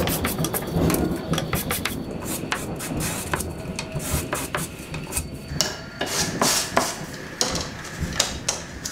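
Sandpaper rubbed by hand over small scroll-sawn wooden pieces, in short irregular scratchy strokes, with a few light knocks of wood on the bench.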